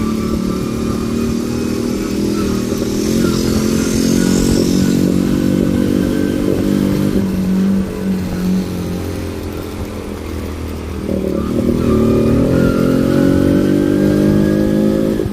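Honda Benly 50S's small single-cylinder four-stroke engine running steadily through its exhaust, dipping slightly and then picking up again about eleven seconds in.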